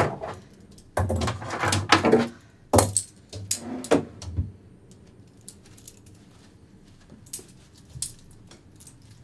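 Metal handcuffs jangling and clinking as they are handled, a rattling flurry of clicks in the first few seconds, then a few faint clicks.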